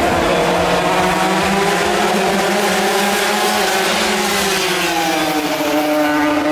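Racing vỏ lãi boats' engines running hard at speed, a steady high-revving drone whose pitch slides down and up about three to five seconds in as a boat passes.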